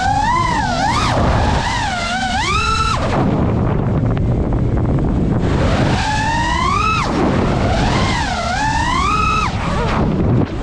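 FPV quadcopter's brushless motors whining, the pitch sweeping up and down with the throttle, over the rush of wind on the onboard camera's microphone. For a few seconds in the middle the whine drops away, leaving mostly wind, then it comes back.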